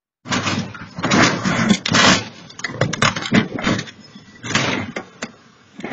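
Vehicle crash heard through a home security camera's microphone: a run of loud, irregular bangs and scraping crunches, loudest in the first two seconds.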